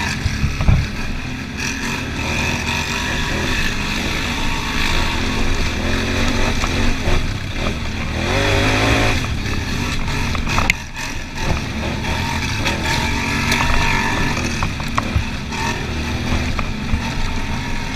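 Can-Am ATV engine running under way on a dirt trail, heard from the rider's seat, its pitch rising and falling with the throttle and climbing in a rev about halfway through. Two sharp knocks stand out, one about a second in and one a little after ten seconds.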